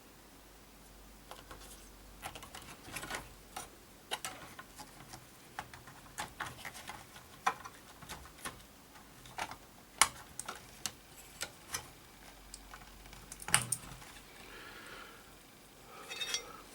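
Irregular sharp clicks and taps of small parts being handled while reassembling a Macintosh Classic, with a faint low hum that stops about 13 seconds in.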